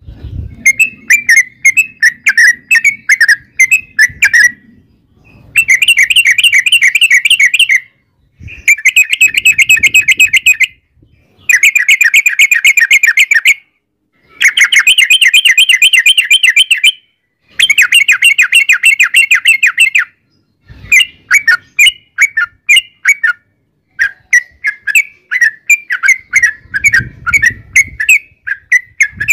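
Yellow-vented bulbul singing a long 'ropel' song: fast runs of rapid repeated chirping notes, in phrases of two to three seconds with short breaks between them. A few faint low thumps come in under the song.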